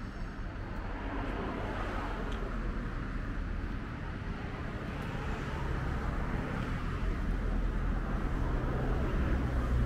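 Steady outdoor background noise with a low rumble, growing louder toward the end.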